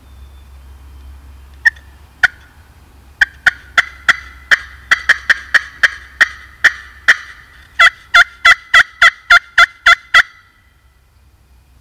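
Turkey call blown or worked in a series of short, sharp, turkey-like notes, at first spaced out, then speeding up into a quicker, louder run that stops abruptly about ten seconds in. The hunter is calling to make a silent gobbler answer.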